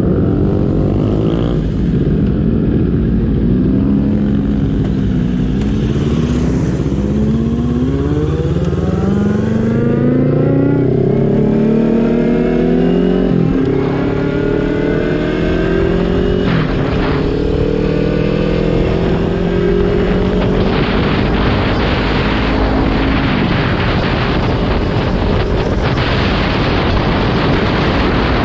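Stock Kawasaki Ninja 400 parallel-twin engine accelerating hard through the gears, its pitch climbing and dropping back at each of several upshifts before settling into a steadier high run. Wind buffeting on the microphone grows loud in the second half as speed builds.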